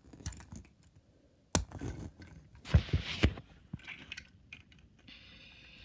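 Handling noises: a sharp click about one and a half seconds in, then a short rustle with a few knocks around three seconds in, and faint scattered clicks after that.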